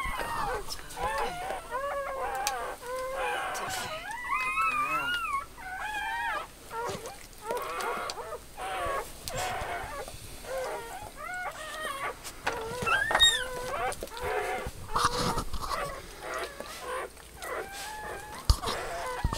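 Dog whining and whimpering in a long run of high cries that rise and fall in pitch, one after another.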